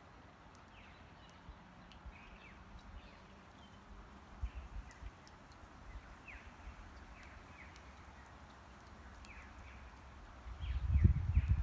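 Small birds calling from the shoreline trees in short, repeated downward-sweeping chirps over a faint outdoor hiss. Near the end a loud low rumble of wind buffeting the microphone comes in.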